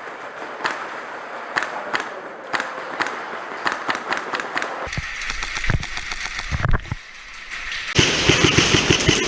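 Airsoft guns firing during a speedsoft match: a string of sharp snaps and clacks, with a denser, louder run of rapid fire in the last second or so.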